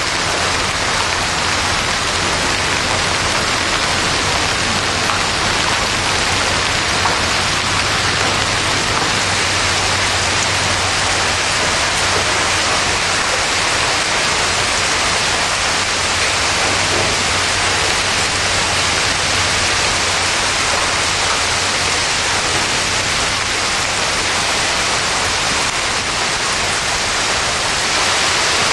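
Heavy rain mixed with golf-ball to tennis-ball size hail pelting pavement and vehicles, a dense, steady hiss that does not let up.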